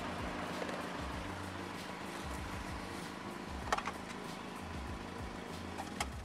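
Subaru Legacy GT's turbocharged flat-four idling steadily, heard from inside the cabin, with a couple of sharp clicks. The engine is switched off near the end.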